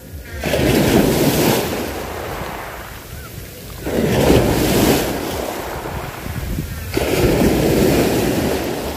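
Waves breaking and washing up the beach, three surges a few seconds apart, each swelling and then fading, with wind rumbling on the microphone.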